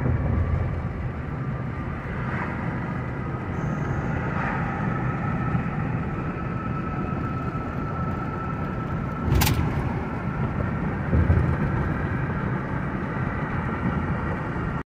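Car driving at highway speed, heard from inside the cabin: steady road and engine rumble. A single sharp click sounds about nine seconds in.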